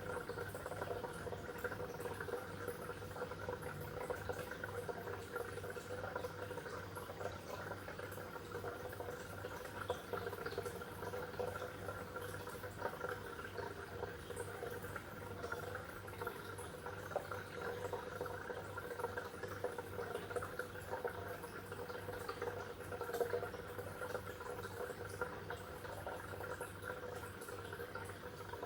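Water in a fish tank bubbling and trickling steadily, with a low hum beneath it.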